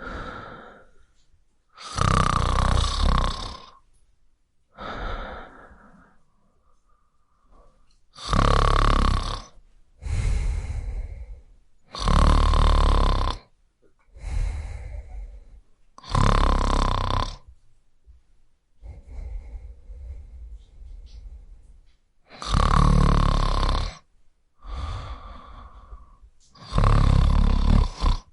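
A person snoring: loud, rough snores every four to six seconds, each followed by a softer breath, with a longer lull about two-thirds of the way through.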